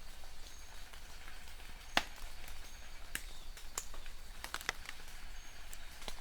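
Steady rain hiss with irregular sharp taps and drips of drops landing close by, one louder drop about two seconds in.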